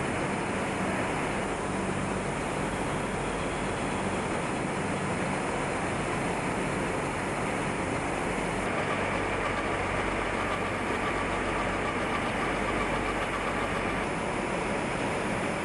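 Steady din of cotton-mill yarn spinning and winding machinery running, a dense even rush of noise with a low hum. A faint steady whine joins about halfway through.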